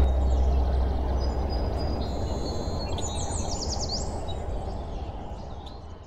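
Birds chirping over a steady background of outdoor noise, with a quick run of high chirps about three and a half seconds in; the whole fades out toward the end.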